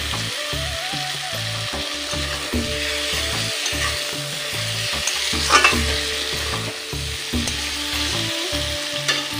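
Ridge gourd and potato masala sizzling in a hot metal kadai while a metal spatula stirs and scrapes it, with one sharper scrape of the spatula on the pan about five and a half seconds in. The masala is cooked down to the point where the oil separates out.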